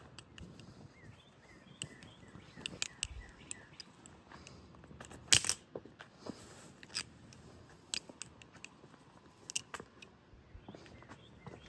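Balisong (butterfly knife) being flipped: irregular sharp clicks and clacks of the handles swinging and meeting, with a louder double clack about five seconds in.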